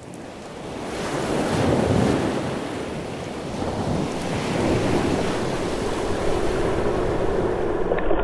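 Ocean surf: a steady rush of waves and moving water, heard close through a GoPro Hero 3's waterproof housing at the water's surface, swelling in at the start.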